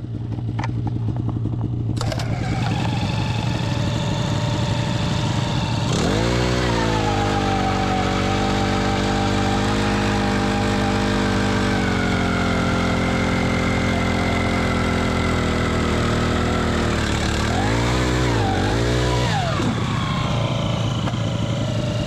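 Small gasoline engine running, revving up to a higher steady speed about six seconds in, then dipping twice and picking up again near the end.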